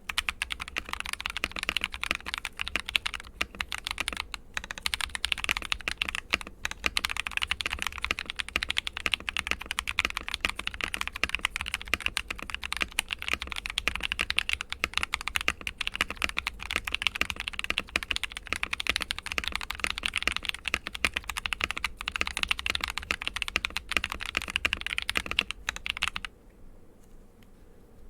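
Continuous fast typing on a Royal Kludge RK71 mechanical keyboard fitted with Akko V3 switches, lubed Holee-modded stabilisers, case foam and a tape mod: a dense patter of key presses that stops abruptly near the end.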